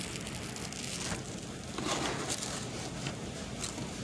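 Brief rustles of the paper chicken box as the food is handled and a biscuit is picked out, three or so short bursts, the strongest about halfway through. Under them runs a steady low background hum.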